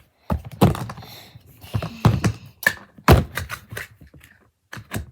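A string of irregular taps and knocks, hard objects being handled and set down, with the loudest knock about three seconds in.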